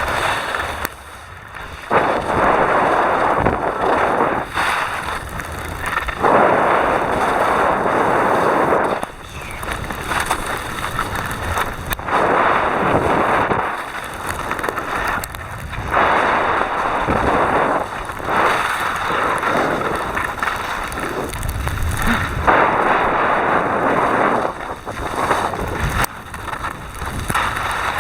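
Wind buffeting the microphone while skiing, coming in loud surges that swell and drop away every few seconds.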